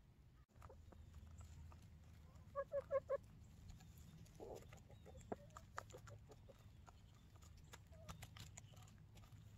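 Hens clucking quietly while foraging: a quick run of four clucks about two and a half seconds in and a single lower call a little later, with scattered small clicks and rustles from scratching and pecking in the hay.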